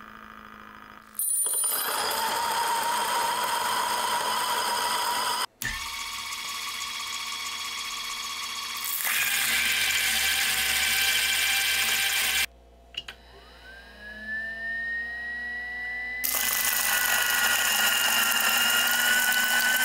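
Electric coffee grinders running one after another in about five short clips, starting about a second in: each a steady motor whine with grinding noise, some louder than others. In one quieter clip the motor's whine rises in pitch as it spins up.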